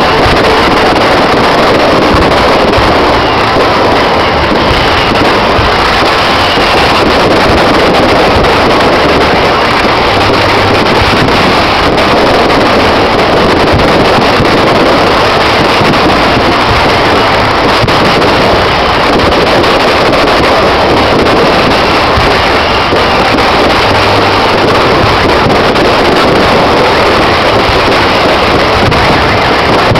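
Fireworks going off in a dense, continuous barrage, heard as one loud, unbroken rumble with no separate bangs standing out.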